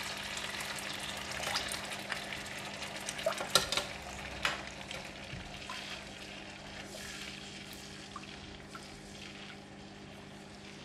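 Ginger scallion sauce sizzling in a nonstick wok with water just added, stirred with a silicone spatula that gives a few soft scrapes and taps. The sizzle slowly dies down.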